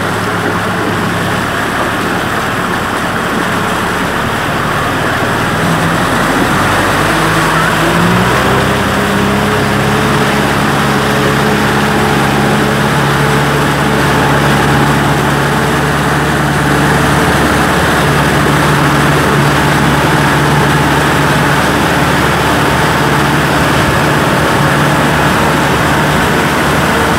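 Kubota M6040 SU tractor's four-cylinder diesel engine running steadily, heard from on board while the tractor drives. About eight seconds in, the engine note rises as it revs up, then holds at the higher speed.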